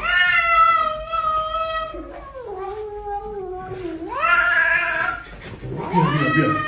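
A cat yowling in long, drawn-out calls. The first call lasts about four seconds and drops lower in pitch partway through. It is followed by a shorter rising call and another yowl near the end.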